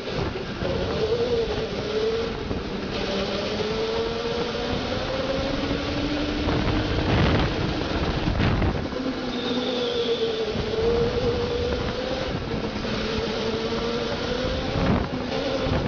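Go-kart motor running under load during a chase, its whine wavering up and down in pitch as the kart speeds up and slows through the turns. A few short knocks are heard, the loudest about seven seconds in.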